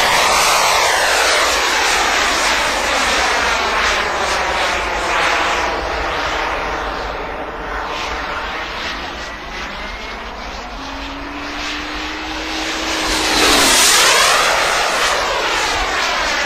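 Turbine-powered model jet in flight, a steady rushing hiss. It is loud at first, fades somewhat, then swells again to a close pass about three-quarters of the way through before drawing away.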